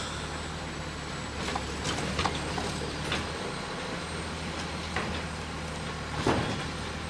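Automated side-loading garbage truck's engine running steadily, with a series of short knocks and clanks as its mechanical arm lifts and tips a yard-waste cart into the hopper; the loudest knock comes about six seconds in.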